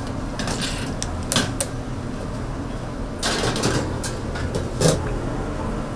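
Scattered sharp knocks and clatter over a steady low hum, with a half-second scraping noise about three seconds in and a loud knock near the end.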